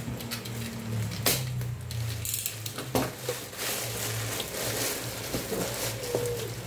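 Clear plastic wrap around a boxed compressor hose crinkling and rustling as it is handled, with sharp crackles about one and three seconds in, over a steady low hum.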